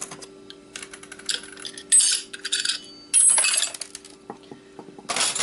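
Small metal hard-drive parts clinking and rattling as they are handled and set down during disassembly, in several short bursts, two with a brief bright metallic ring.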